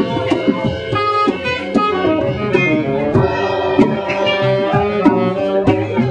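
Small live band playing: saxophone holding notes over electric bass, with drum and cymbal strokes.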